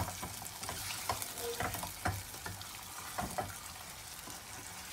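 Chicken frying in hot oil and curry spice paste in a pot, a steady sizzle. Scattered clicks and scrapes come from a utensil stirring against the pot.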